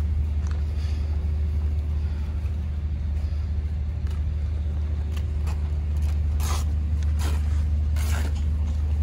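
Steady low mechanical hum, with a faint steady higher tone that stops about six seconds in. Near the end come three brief rustles of fabric as a casualty's uniform is handled.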